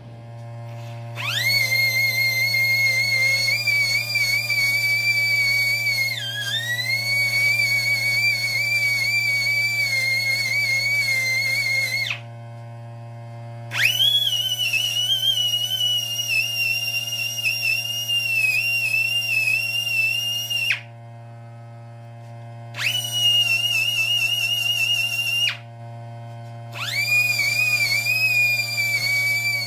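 Pneumatic die grinder with a round cutter whining at high speed as it grinds out the intake port and valve guide boss of a small lawnmower engine block. It runs in four bursts: a long one of about ten seconds, whose pitch dips about six seconds in as the cutter bites, then three shorter runs at a slightly higher pitch. A steady low hum lies underneath.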